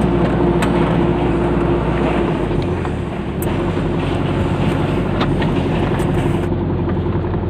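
Delivery truck engine running while driving, with road noise, heard from inside the cab. The low rumble shifts about two and a half seconds in.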